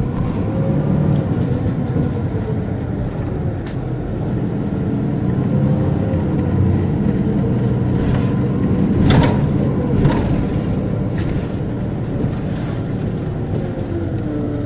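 Volvo D7E six-cylinder diesel engine and ZF Ecomat automatic gearbox of a Volvo 8700LE city bus under way, the engine's pitch rising and falling as the bus drives and changes gear. A few sharp knocks or rattles come through, the loudest about nine seconds in.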